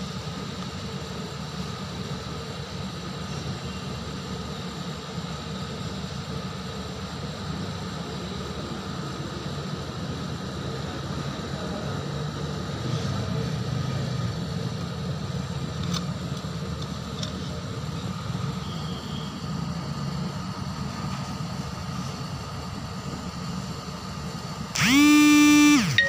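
Steady low background hum. About a second before the end, loud music starts with a sustained pitched tone.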